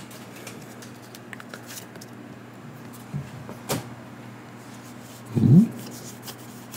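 Quiet handling of Pokémon trading cards at a desk: faint ticks and rustles, with one sharp click a little before four seconds in. About five and a half seconds in comes a short, rising hum of a voice.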